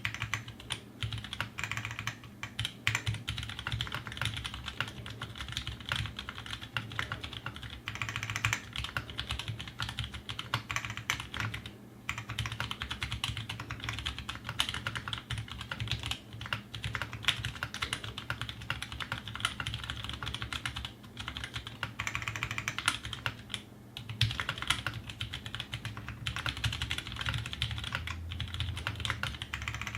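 Fast, continuous typing on a custom 60% mechanical keyboard: an Aquaria case with an aluminium plate and Zeal60 PCB, tactile Halo Ergo switches (Halo housings, Cherry MX Clear stems, 62g springs) and GMK Laser keycaps. The typing pauses briefly twice.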